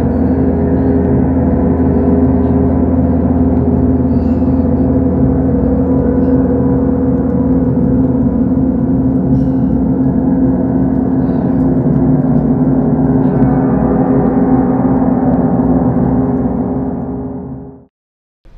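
Loud sustained soundtrack drone of many steady, gong-like tones layered together, fading out over the last two seconds to silence.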